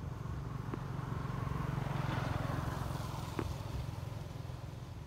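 A motor vehicle passing: its engine and road noise swell to a peak about two seconds in and then fade, over a steady low rumble. There are a couple of faint clicks.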